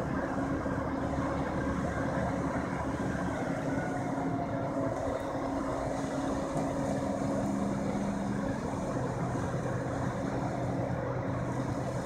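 Heavy diesel engines of wrecker tow trucks and an excavator running steadily, with the engine pitch shifting lower about two-thirds of the way through.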